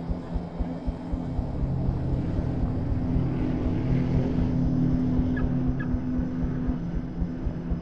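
Engine drone, steady and low, with a fast regular throbbing pulse; it swells a little in the middle and eases toward the end.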